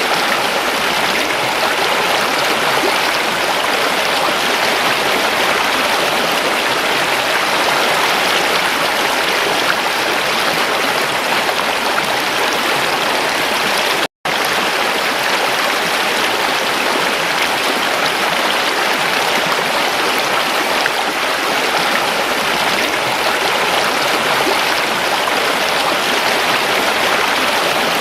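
A stream of water rushing and splashing steadily, with a momentary cut to silence about halfway through.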